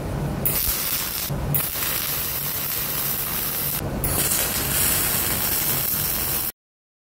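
Electric arc welding on steel plate, the cap pass: a steady crackling, frying hiss from the arc, broken twice by short gaps, that cuts off suddenly near the end.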